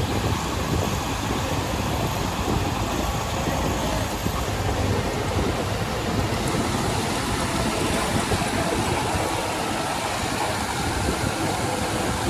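Heavy machinery diesel engine running steadily.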